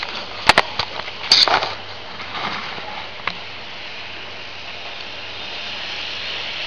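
Several sharp knocks and clicks in the first second and a half as the camera is handled and set down on the floor. Under them, a steady hiss from the N-gauge EF65-1000 model locomotive and its container cars running around the track loop, growing slightly louder near the end as the train approaches.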